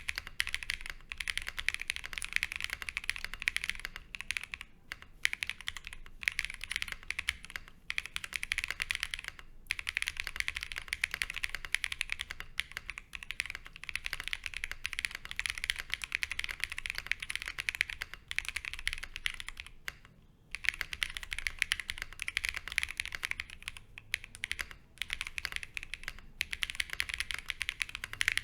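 Continuous typing on a Fox Lab Sunset 80 mechanical keyboard with lubed Zaku switches on a polycarbonate plate, PBT keycaps and Cherry clip-in stabilisers, with case foam and plate foam fitted. It is a dense run of keystroke clicks, broken by a few brief pauses.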